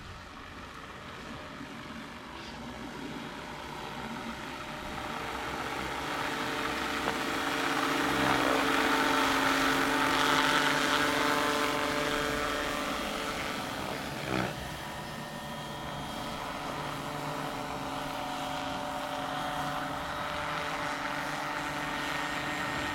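Large electric scale RC helicopter (Vario AS350 Écureuil) flying: rotor blade noise with a steady motor-and-gearbox whine, growing louder as it comes close past, loudest about ten seconds in, then settling into a steady hover. A short sharp knock about fourteen seconds in.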